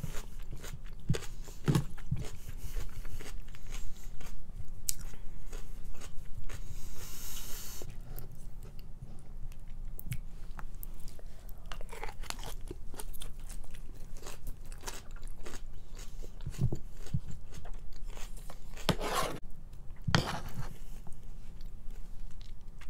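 Close-up chewing and crunching of a noodle salad with raw greens, a dense run of irregular wet crunches and mouth clicks.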